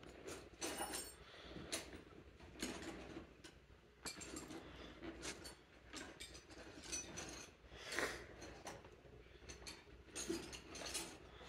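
Fairly faint, irregular clicks, clinks and knocks of hand work under the hood, as the old oil catch can is being got out.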